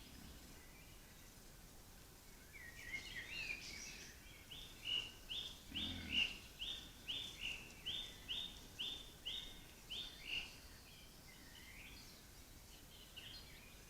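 A songbird singing: a short twittering phrase, then a run of about a dozen clear, repeated falling notes, roughly two a second, that stops about ten seconds in.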